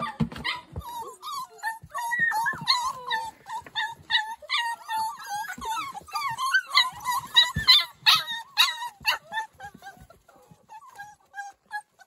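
A pen full of blue and red heeler and livestock guardian puppies whining and yipping, many at once in overlapping high cries that thin out near the end. They are crying at being shut in the pen.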